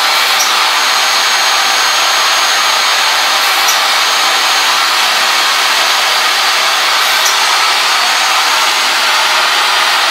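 A machine running steadily and loudly: an even, high-pitched rushing noise from its motor, with a faint click about every three and a half seconds.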